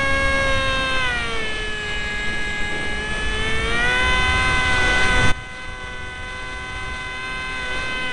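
Onboard whine of a small RC foam jet's electric motor and propeller in flight, its pitch falling about a second in and climbing again near four seconds as the throttle changes. Rushing air noise runs underneath and cuts off suddenly a little past five seconds, just after a brief louder moment, while the motor whine carries on more quietly.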